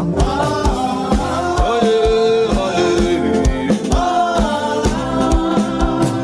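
Gospel worship song: singing voices over a band with a steady drumbeat of about two beats a second.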